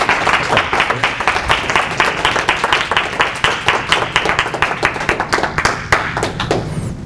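A small audience clapping in welcome, the claps thinning out and stopping near the end.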